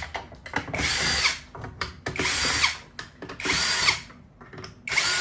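Power screwdriver with a T25 Torx bit whirring in four short bursts, about a second apart, backing out the front bumper screws one after another. Faint clicks come between the bursts.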